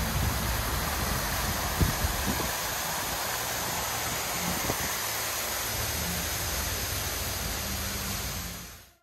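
Steady rushing of water pouring over a dam spillway, heard from a passing car, with low wind buffeting and road rumble under it. A few soft knocks, the sharpest about two seconds in; the sound fades out near the end.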